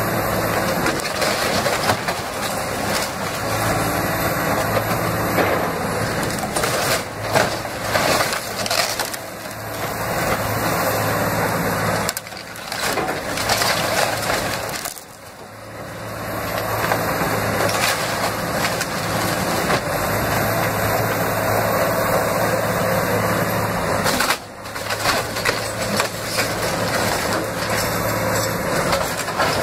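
Cat 336E hydraulic excavator tearing down a wood-frame house. Timber and siding crash and splinter over the steady hum of its diesel engine, with a few short lulls.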